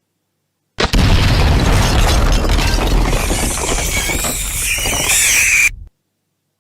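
Explosion sound effect: a sudden blast about a second in, followed by a long low rumble and crackle for about five seconds that cuts off abruptly.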